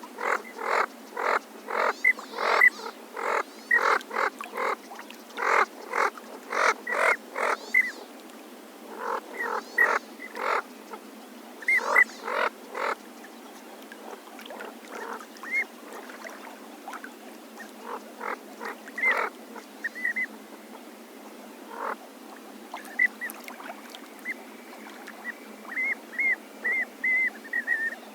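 A series of short, sharp waterfowl calls, about two a second at first, then sparser, with a quick run of thinner, higher notes near the end. They are yellow-billed pintail and magpie goose calls reworked into a speculative voice for the extinct bird Vegavis.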